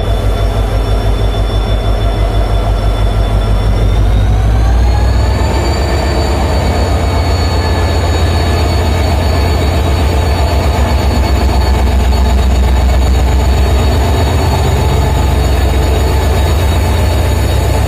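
Two-stroke, turbocharged EMD 710 diesel engine of a WDP4D locomotive running, a deep rumble with a high whine on top; about four seconds in the hum and whine rise in pitch, then hold steady at the higher note.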